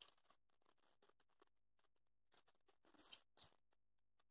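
Near silence, with faint handling noise from fingers working a small piece of EVA foam and two brief soft crackles a little after three seconds in.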